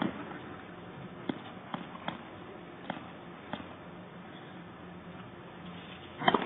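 Hush of a quiet indoor tennis arena with a few short, sharp knocks spaced irregularly, typical of a tennis ball bounced on the hard court before the serve, then a louder cluster of strikes near the end as the serve is hit.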